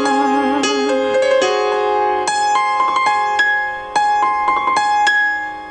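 A woman's voice holds a sung note with vibrato, then a keyboard plays a short run of piano notes alone, its last chord ringing and fading out near the end.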